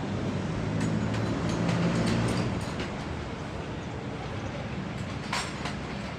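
Workshop noise: a steady low rumble with several sharp metallic clinks, the loudest about five seconds in.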